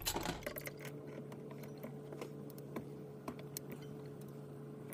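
Faint scattered clicks and small metal taps as an adjustable wrench is fitted onto the brass valve fitting of a Coleman 508 stove's fuel tank, over a steady low hum.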